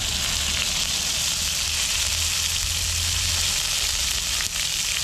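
Curry leaves sizzling and crackling in hot coconut oil in a frying pan: a steady hiss with fine pops.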